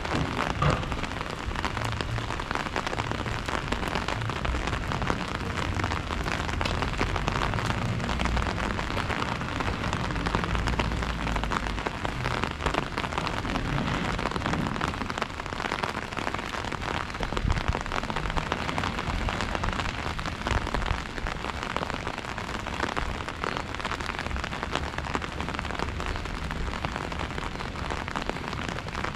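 Steady rain falling, dense with the small taps of individual drops, over a low rumble that comes and goes.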